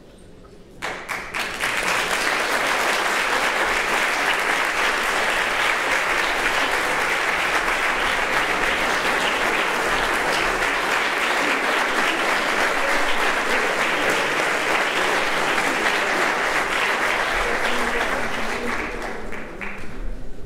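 Audience applauding: the clapping builds quickly about a second in, holds steady, and thins to a few scattered claps before stopping near the end.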